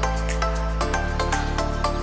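Background music: a quick run of light, evenly spaced notes over held bass notes, the bass shifting to a new note about a second in.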